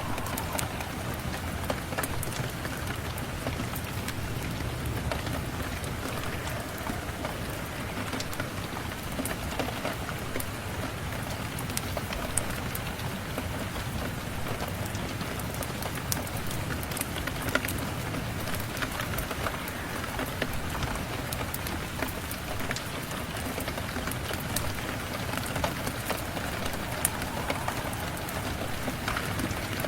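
Steady rain falling, with many faint sharp ticks scattered throughout.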